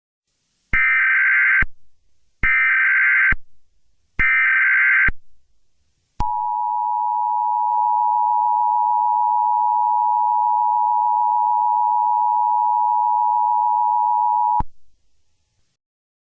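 Emergency Alert System alert opening: three bursts of SAME header data tones, about a second each, then the steady two-tone EAS attention signal (853 and 960 Hz) held for about eight seconds before cutting off abruptly.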